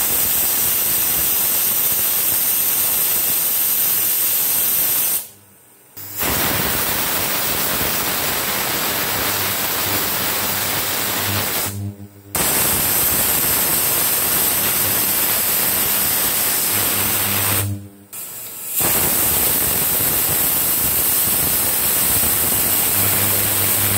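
Aluminium stovetop pressure cooker whistling: loud, steady hiss of steam venting past the weighted whistle as the cooker reaches pressure. It comes in four stretches of about five seconds each, each cut off suddenly.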